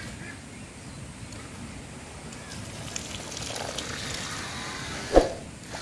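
Water from a homemade mini DC-motor pump splashing and trickling back into a plastic bucket. A single knock about five seconds in.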